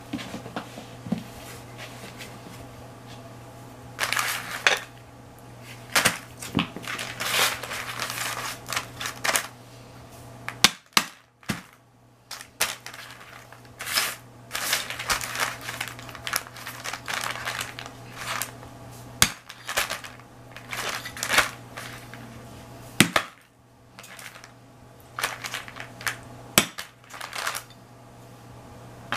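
A claw hammer knocking and prying at small figurines on metal stocking hooks, breaking them off: irregular sharp knocks and cracks, with scraping and crunching of broken pieces between the blows.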